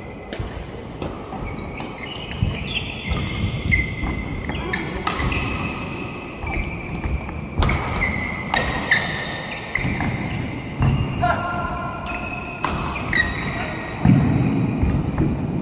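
Badminton doubles rally: rackets striking the shuttlecock with sharp cracks at an irregular pace, and court shoes squeaking in short high chirps on the court mats as the players move.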